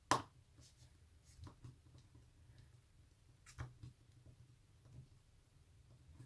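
A small hand screwdriver turns a screw into a plastic model wheel. There is one sharp click just after the start, then faint, scattered ticks and scrapes of the screw and tool.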